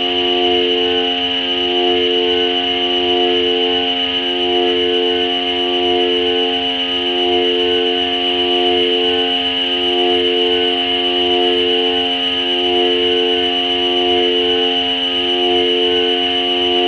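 Electronic ambient drone from a Korg Volca Modular synthesizer: sustained layered tones in which two middle notes trade places about every second and a half, over a steady high whine and a fast low pulsing.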